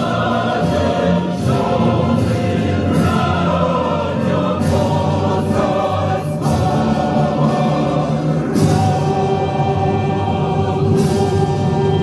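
Church choir singing a slow funeral chant in long held chords.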